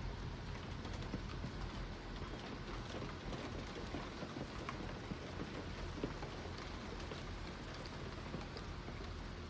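Big raindrops of a thunderstorm spattering on surfaces, a dense patter of irregular ticks and knocks, with one sharper hit about six seconds in.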